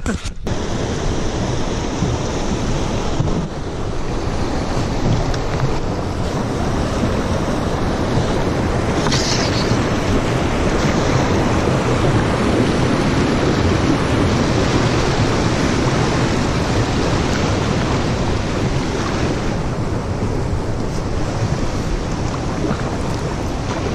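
Wind buffeting the microphone: a loud, steady rushing rumble with no break.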